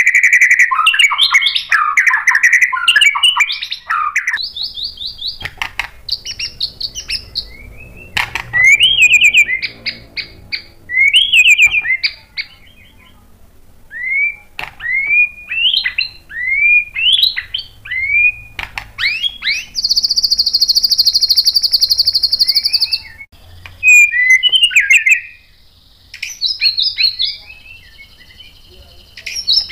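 White-rumped shama singing a varied, loud song of whistled phrases and runs of quick rising notes, with a long fast trill about two-thirds of the way through.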